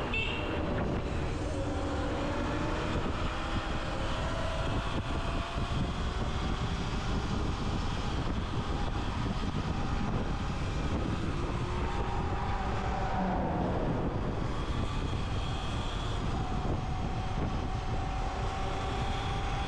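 Electric dirt bike on the move: the motor's whine rises and falls in pitch with speed over a steady rumble of wind on the microphone.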